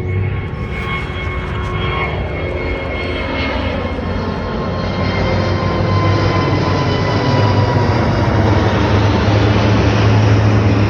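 Airbus A380's four jet engines at takeoff thrust: a dense rushing noise with steady whining tones through it, growing steadily louder.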